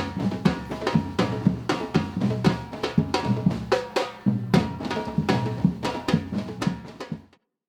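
Batucada percussion ensemble playing a driving rhythm: deep bass drums under sharp snare and high drum hits, with a brief break a little after four seconds in. The playing cuts off suddenly near the end.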